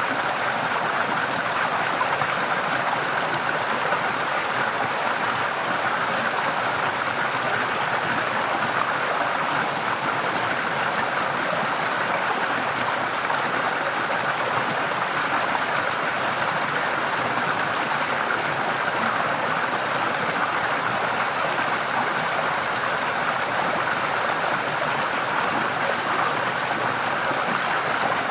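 Forest stream running over rocks: a steady, even rush of flowing water.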